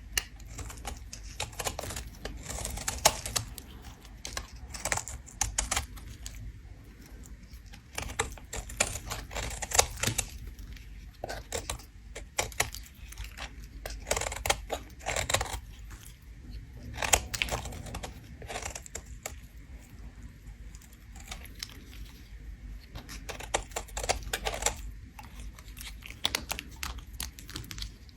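Bar of soap being scraped, giving crisp, rapid crackling scrapes in repeated bursts.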